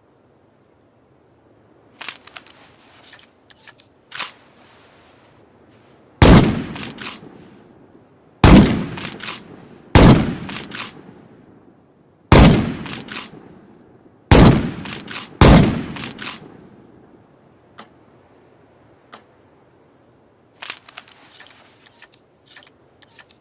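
Pump-action shotgun: a few mechanical clicks, then six loud shots about two seconds apart, each followed by the quicker clack of the slide being worked. More clicks of the action come near the end.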